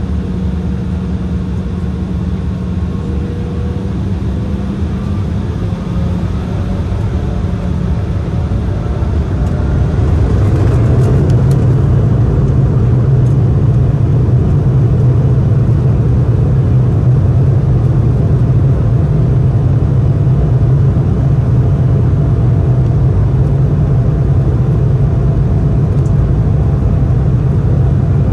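Embraer 175's twin GE CF34 turbofan engines running at taxi power, heard from the cabin over the wing as a steady hum. About ten seconds in, the engine noise rises and grows fuller, then holds steady as the jet turns onto the runway.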